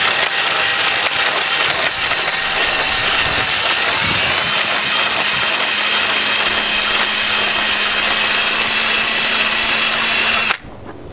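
Drill spinning a small grinding stone against the brass seat inside a tub valve body: a steady whine over a grinding hiss as the pitted faucet seat is ground flat so the valve will seal. The drill stops abruptly just before the end.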